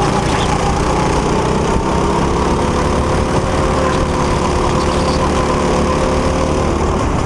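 Go-kart engine running at speed, heard from the driver's seat, a steady buzzing engine note over a heavy low rumble.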